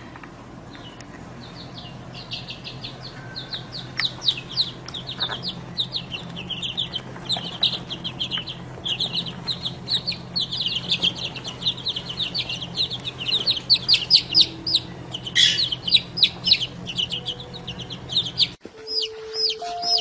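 A group of young chicks peeping: rapid, high, falling cheeps, several a second, over a low steady hum. Near the end the hum cuts off and music comes in under the peeping.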